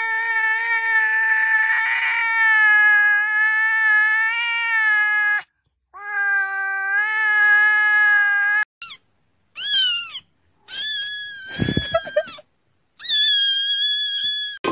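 A cat meowing: two long, drawn-out meows of several seconds each, then several shorter, higher meows, some falling in pitch.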